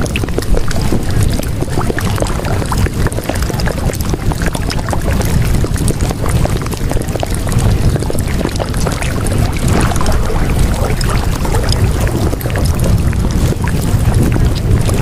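A steady rushing sound, like water or wind, with a deep low rumble and a fine crackle throughout. It is the masking background of a subliminal track.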